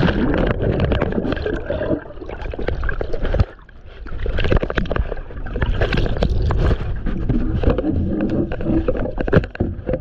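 Churning seawater in the whitewater of a breaking wave as the camera tumbles and goes under, with bubbling gurgles. It drops sharply about three and a half seconds in before the churning picks up again.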